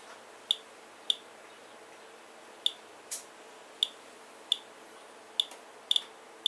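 Geiger counter clicking at random, uneven intervals, about one and a half sharp clicks a second. Each click is one detected radiation count, here from a rain sample averaging about 85 counts per minute.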